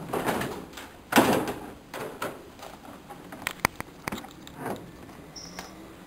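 Wheeled hospital bed being pushed, its frame rattling and knocking in irregular bumps. The loudest bump comes about a second in, and a sharp click a little past halfway.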